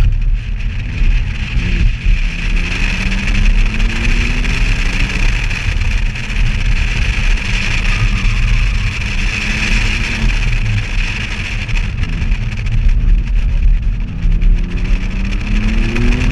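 A BMW sedan's engine being driven hard through a cone course, its pitch rising and falling as it accelerates and lifts, climbing again near the end. Heard from a camera on the car's outside, so heavy wind buffeting on the microphone sits under it with a steady hiss.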